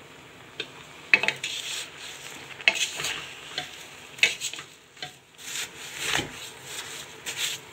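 Wooden spatula stirring raw apple chunks and dry granulated sugar in a stainless steel pot: irregular gritty scrapes and knocks of wood against the metal, starting about half a second in. This is the very start of cooking apple jam, with the sugar not yet dissolved.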